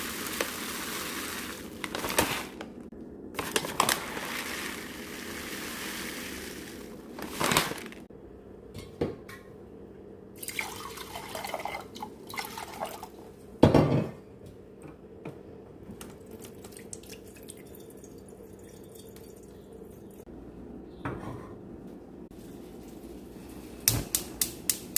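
Water running and dripping, which stops after several seconds. Then come quieter clinks and knocks of dishes, with one loud knock about halfway through.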